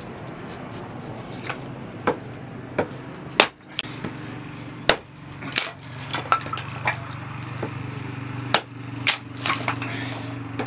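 Hammer striking while a short log is split into kindling: irregular sharp knocks, about a dozen, some close together in pairs.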